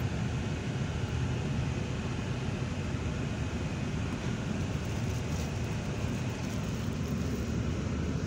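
Bus on the move, heard from inside the cabin: a steady rumble of engine and road noise.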